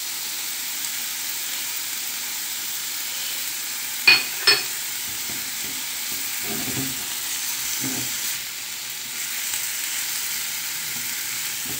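Chicken, onion and garlic sizzling steadily in ghee in a frying pan as the spices are stirred in, with scraping stir sounds. Two sharp knocks on the pan come about four seconds in.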